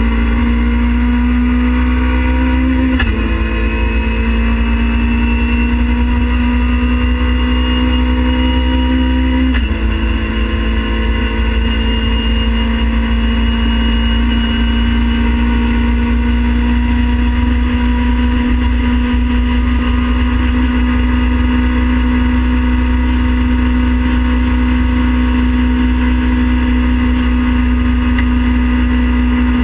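Race car engine at full throttle, heard from inside the cockpit, climbing steadily in pitch. Two upshifts, about three and ten seconds in, each bring a sudden drop in pitch; after them the engine makes a long slow climb in fifth gear toward about 7,400 rpm.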